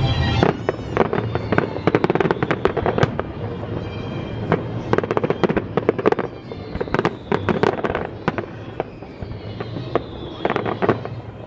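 Fireworks display: a rapid, irregular run of bangs and pops from aerial shells and comets, dense through most of the stretch and thinning near the end.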